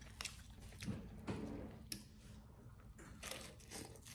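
Faint crinkling and soft wet clicks of lettuce leaves being handled and folded around a chicken filling by hand.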